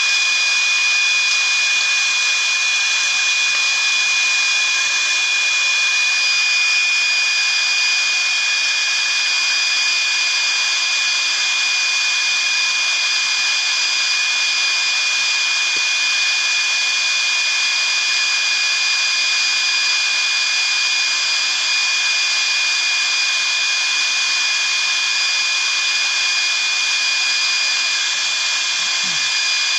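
Small experimental jet engine running steadily: a loud rush of air with a constant high-pitched turbine whine that does not change.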